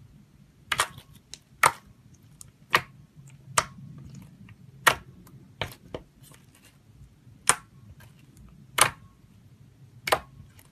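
Thick glossy slime being pressed and folded by fingers, air trapped in it popping out in sharp clicks, about nine pops at roughly one a second.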